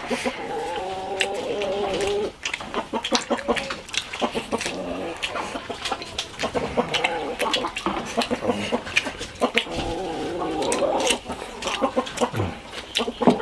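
Eating at the table: chopsticks clicking against porcelain rice bowls and chewing, with a hen clucking in the background at the start and again about ten seconds in.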